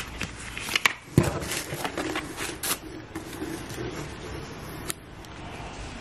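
Stiff paper and card packaging being handled: rustling, sliding and tapping of envelopes, a card folder and booklets, with a sharp knock about a second in.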